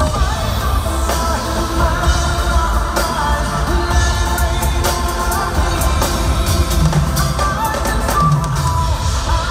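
Live pop concert music heard from the stands of an arena: a singer over a band with a steady drum beat and heavy bass.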